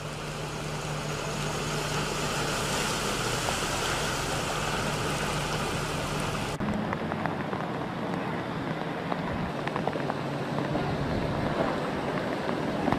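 Heavy rain hissing, with the steady hum of a vehicle engine as an SUV drives through a flooded street. About six and a half seconds in, the sound cuts to another recording of rain pattering, with many small splashes and drips.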